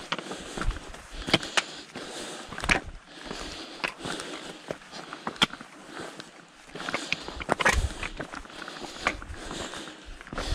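Footsteps crunching on loose rock and gravel, with the metal tips of trekking poles clicking and scraping on stone in an irregular walking rhythm, and the hiker's breathing.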